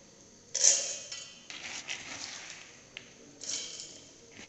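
Soaked green gram and rice grains poured into an empty stainless steel mixer-grinder jar, rattling against the steel. Three pours: the first and loudest about half a second in, then two smaller ones.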